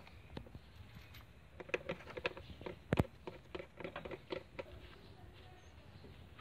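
Scattered light clicks and taps of gloved hands handling parts at the front of the engine, with one sharper click about three seconds in; it goes quiet after about five seconds.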